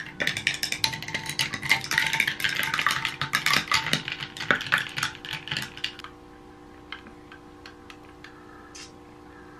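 A metal straw stirring a latte in a glass, rapid clinking and rattling against the glass for about six seconds, then only a few scattered taps. Faint background music with held notes runs underneath.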